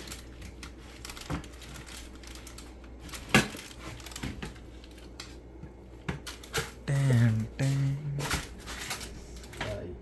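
Scattered light clicks and knocks, the sharpest about three seconds in, with a brief voice sound around seven seconds in.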